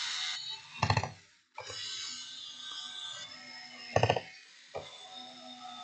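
Music over a steady hiss, with two short, louder pitched bursts, about a second in and about four seconds in.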